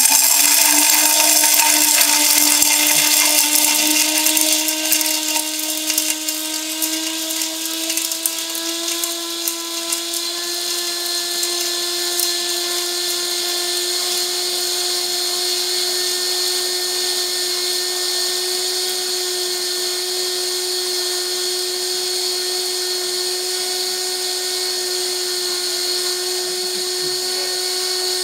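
High-speed electric multifunction grinder running at full speed with glass bottles in its chamber. Crackling of the glass being smashed fills the first few seconds and fades. The motor's whine climbs slightly in pitch over about ten seconds and then holds steady.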